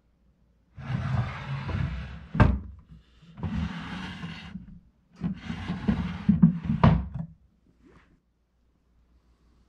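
Solid-wood dovetailed drawer sliding in and out of its cabinet on hardwood runners: a wood-on-wood rasp three times. The first and last slides end in a sharp knock as the drawer shuts.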